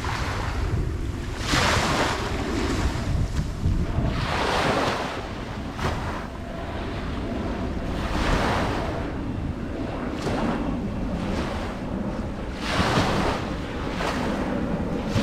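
Ocean waves breaking and washing up a beach, a fresh wash of surf every few seconds over a steady low rumble, with wind buffeting the microphone.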